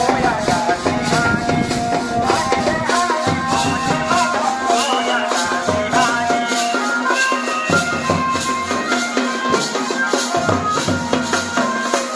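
Pahari folk music, a tandi geet: a melody over a steady drone, with a quick, regular percussion beat.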